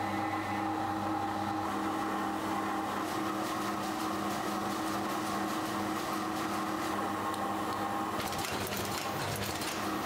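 Steady hum of running factory machinery holding several fixed tones. About eight seconds in, the sound changes abruptly, and a high hiss with rapid fine clicking joins the hum.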